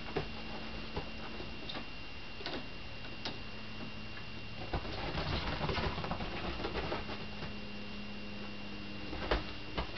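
Kittens playing on a bed and windowsill: scattered soft taps and thumps of paws landing and scampering, with a stretch of rustling on the duvet about halfway through.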